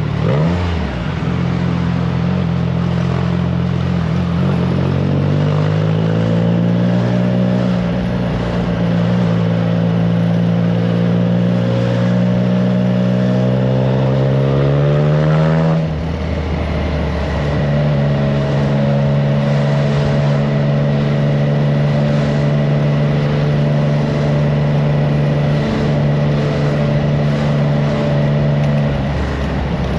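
Triumph Trident 660's three-cylinder engine through a FireTong exhaust, under way: the engine note climbs slowly and steadily under throttle, drops sharply about halfway through as the revs fall, then holds an even cruising pitch, with wind noise on the microphone.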